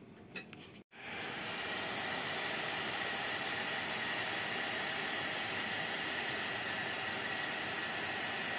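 Hot air gun blowing steadily to shrink heat-shrink tubing over a freshly soldered wire joint. The even hiss starts about a second in, after a few faint clicks.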